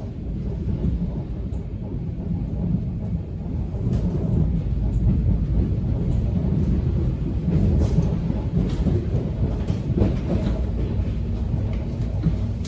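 Subway train car in motion: a steady low rumble with a few faint clicks and knocks from the wheels and rails.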